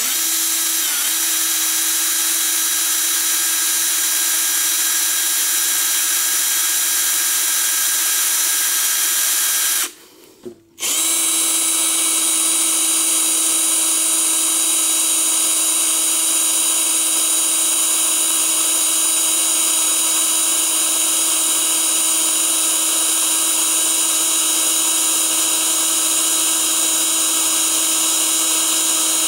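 Hand drill running with a steady whine as a small bit, about 0.110 inch, drills into a seized exhaust manifold stud. It stops for under a second about ten seconds in, then runs on at the same pitch.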